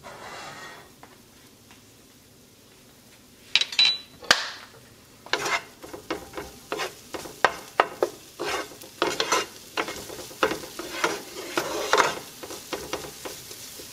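Wooden spoon stirring and scraping diced peppers and onion around a nonstick sauté pan, in repeated strokes about two a second, over a light sizzle of the vegetables frying in oil. A few sharp knocks come just before the stirring starts.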